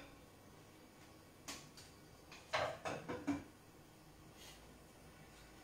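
A few soft knocks and clinks of cookware being handled at the stove: one about a second and a half in, then three or four close together around the middle, with little else to hear.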